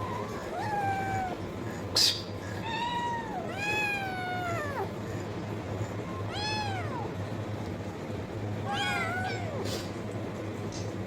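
A cat meowing repeatedly, about five high-pitched meows a second or two apart, one of them longer and falling in pitch at its end. A single sharp click comes about two seconds in.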